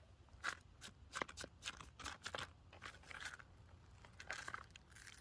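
Faint, irregular crunches and clicks, about a dozen short sounds spaced unevenly, from a quartz rock being handled and turned over.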